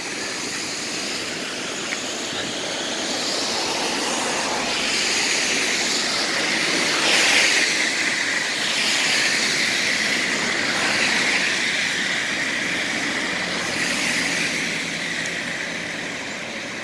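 Flood-swollen river rushing over a waterfall: a steady noise of churning water that grows louder toward the middle and eases near the end.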